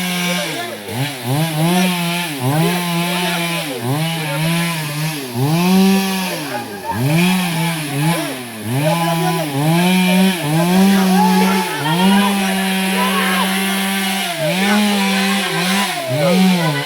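Stihl MS 382 two-stroke chainsaw revving up and down over and over, about once a second, pitch climbing, holding high briefly, then falling. The high hold lasts longer about two-thirds of the way through.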